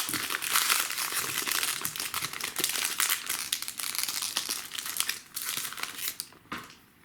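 Packaging crinkling and crackling while trading cards are unwrapped and handled, dying down about six seconds in.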